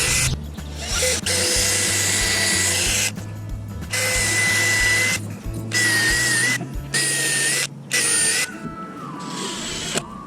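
Power drill running in several short runs of a second or two each, with a steady whine that stops and restarts, typical of drilling or driving screws while assembling a wooden frame. Background music plays underneath.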